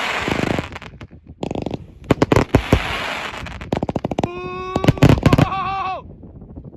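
A 197-shot, 1-inch firework cake firing: rapid volleys of launching shots and bursting breaks, with stretches of crackle. It stops about six seconds in.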